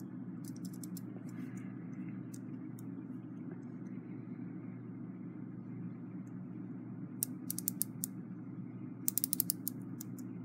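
Mainspring of a Westclox Big Ben Chime Alarm clock movement being wound with a winding key: the ratchet click snaps in short bursts of quick clicks, a few seconds apart, the loudest near the end. A steady low hum lies underneath.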